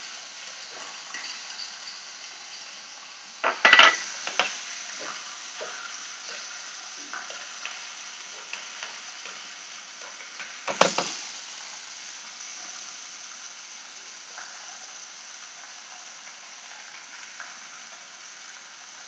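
Steady frying sizzle from a small pan of chopped greens and butter as a spoon stirs it, with light ticks of the spoon. The spoon clatters loudly against the pan about four seconds in and again near the middle.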